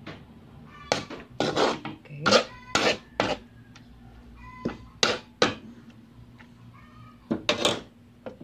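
A spatula scraping and knocking against a wok as cabbage is stir-fried, in a series of sharp strokes in three short flurries. Between them a cat meows faintly a couple of times.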